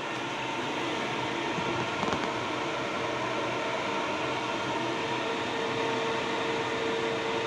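Centrifugal dust-extraction fan running steadily: an even rush of air with a constant hum on top.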